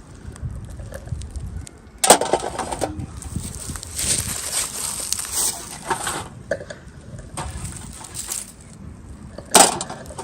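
Unboxing handling noise: packaging and small plastic toy pieces rustling and crinkling, with two sharp clacks, about two seconds in and again near the end.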